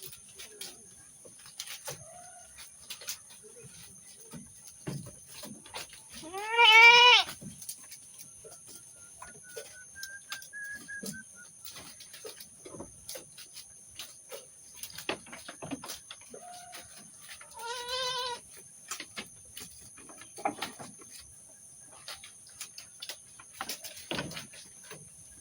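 Goat bleating twice: a loud call that rises and falls in pitch about seven seconds in, and a quieter one about eleven seconds later. Scattered small clicks and rustles run between the calls.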